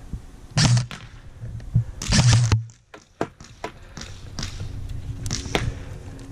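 Muffled thuds and rustling from a rifle-mounted camera as the airsoft gun is shifted about, with a few faint sharp clicks between them.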